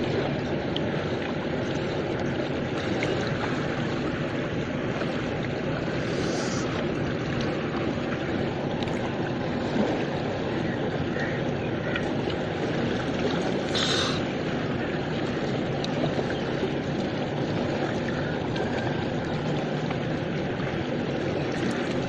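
Steady rushing of river water flowing past, close to the surface. A brief, sharper hiss comes about two-thirds of the way through.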